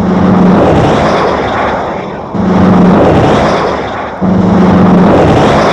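Three 1966 Oldsmobile 88s heard one after another as three swells of car noise. Each opens with a short steady low tone, then becomes a rushing sound that rises and fades away.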